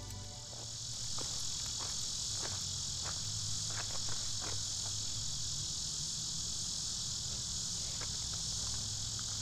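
Steady high-pitched drone of an insect chorus, with a low rumble underneath and a few faint crackles in the first half.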